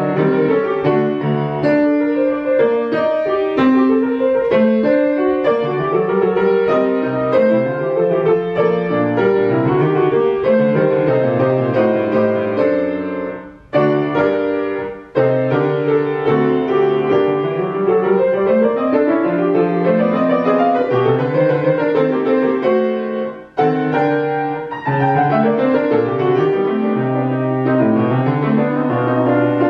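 Grand piano played solo in classical style, with a few brief pauses about halfway and again about two-thirds through.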